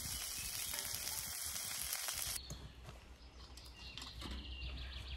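Wood ear fungus, dock leaves and nettles sizzling in oil in a cast iron skillet over a wood fire, a steady hiss. It cuts off about two and a half seconds in, leaving quiet outdoor background with a few faint clicks.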